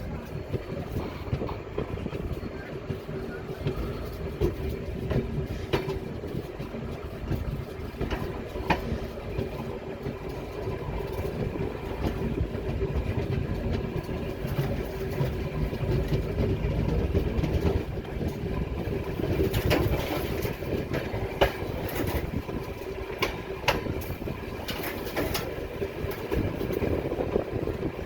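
Train rolling past, a steady rumble with wheels clicking and clacking over the rail joints and a held mid-pitched tone.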